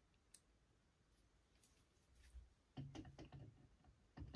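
Near silence with faint clicks and knocks from hands handling an air rifle and its clamp-on bipod, mostly in the second half.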